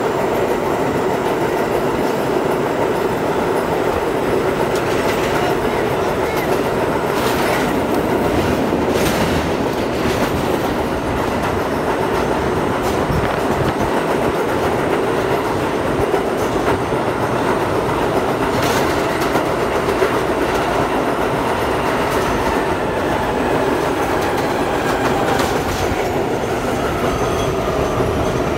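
R42 subway car running fast through a tunnel: steady wheel-on-rail roar with sharp clacks over rail joints. In the last several seconds a whine falls slowly in pitch as the dynamic brakes slow the train into the station.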